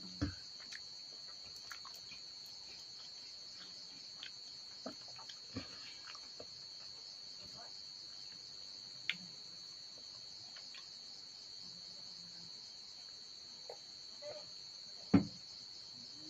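Crickets chirping in a steady high-pitched chorus, with a few sharp clinks and knocks of metal dishes on the table, the loudest about a second before the end.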